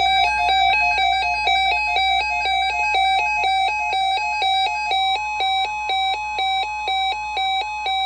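Weather radio receiver's alert alarm beeping loudly, alternating between two pitches several times a second. About five seconds in, a steady higher tone joins underneath: the NOAA weather radio 1050 Hz warning alarm tone that announces a tornado watch.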